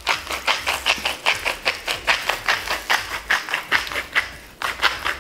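Hand-twisted salt grinder grinding salt, a quick rhythmic run of dry crunching rasps, about four or five a second, that stops shortly before the end.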